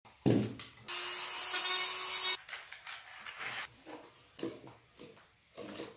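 A corded electric drill runs steadily with a fixed motor whine for about a second and a half, boring into a wooden board. A knock of wood comes just before it, and lighter wooden knocks and handling follow.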